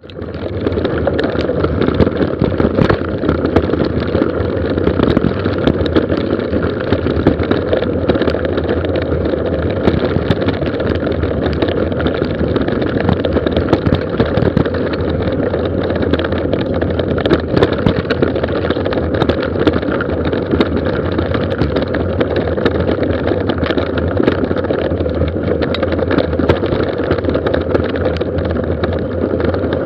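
Mountain bike descending a gravel forest road: steady, rough tyre noise over loose gravel, dotted with frequent clicks and rattles from the bike, fading in about a second in.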